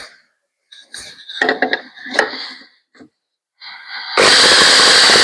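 Short irregular knocks and rubbing as pieces of wooden broom handle are handled and marked on the bench. About four seconds in, a power tool starts with a sudden loud, steady noise that keeps going.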